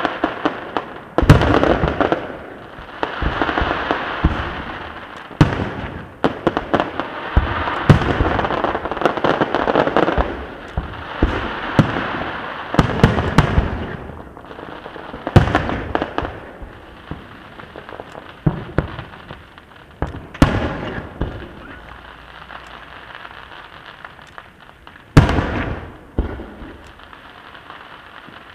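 Aerial fireworks shells bursting with sharp bangs, over a steady crackling from the many small effects between them. The bangs come thick in the first half and thin out later, with one last loud bang a little before the end.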